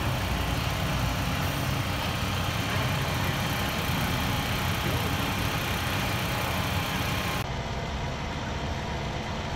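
Dodge Ram pickup's Cummins diesel engine idling steadily on a chassis dyno. About seven seconds in, the sound drops slightly quieter and duller.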